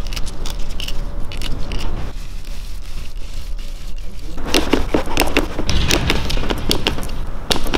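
Ratchet and torque wrench clicking against metal as bolts on a BMW S54 Vanos unit are tightened to spec. A few clicks come first, then a dense run of quick clicks in the second half, over a steady low hum.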